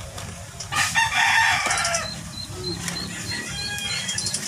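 A rooster crowing once, a call of about a second starting near the one-second mark and falling in pitch at its end, followed by a run of faint high chirps.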